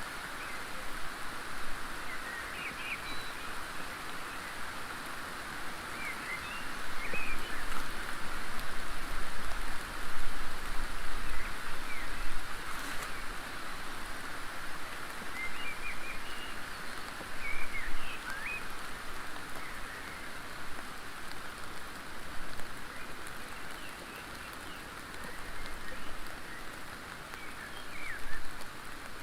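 Steady outdoor hiss, like rain falling, with short faint bird chirps scattered through it and a few louder swells.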